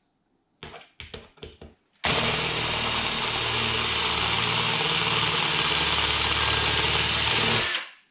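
Cordless drill with a 5 mm bit drilling the head off a blind rivet in a motorcycle exhaust end cap: after a few short clicks, the drill runs steadily at full speed from about two seconds in, then stops near the end.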